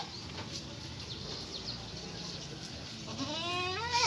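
A single livestock bleat, rising in pitch, about three seconds in and lasting about a second, over quieter pen background.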